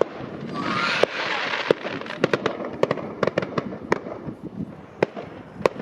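Aerial fireworks going off in an irregular string of sharp bangs and pops, with a crackling hiss about a second in.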